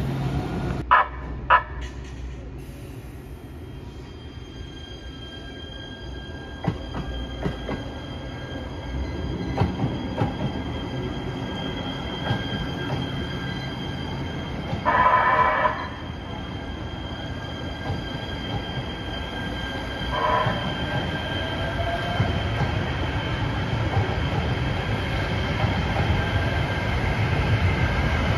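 Los Angeles Metro light rail train running through a station, with steady high-pitched tones from the train throughout. A horn blast of about a second sounds around the middle. Near the end a rising whine is heard as a train pulls away.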